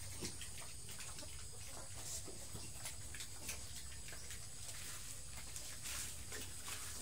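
Several piglets feeding at a concrete trough: irregular small smacks and clicks of chewing and rooting in the feed, over a steady low hum.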